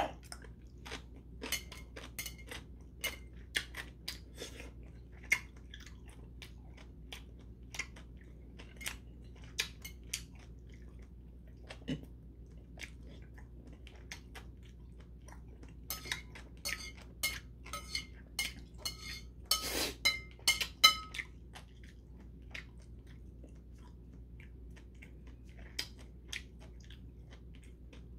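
A person chewing close to the microphone: a crunchy bite into pickled yellow radish (danmuji) at the start, then wet chewing clicks and crunches, thickest about two-thirds of the way through and sparse near the end.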